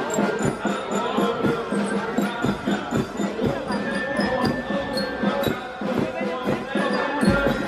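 Street music from a carnival crowd: a steady beat under sustained brass horn notes, mixed with crowd voices.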